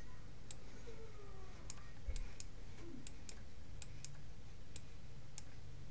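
Computer mouse clicking: a dozen or so short, sharp clicks at irregular intervals while navigating on screen.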